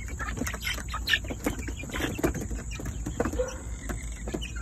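Young chickens and silkies clucking and chirping in short, scattered calls, mixed with short clicks and taps.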